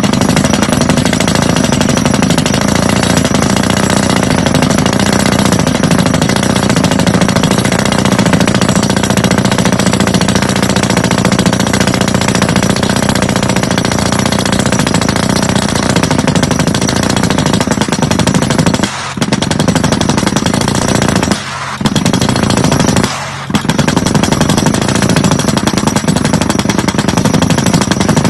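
Percussive hammer of a Yonda YDR30A drill rig running in a rapid, steady rattle, stopping briefly three times in the last third.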